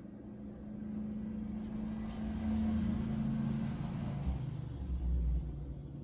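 A passing motor vehicle: low engine hum and road noise that swell from about a second in and fade again near the end.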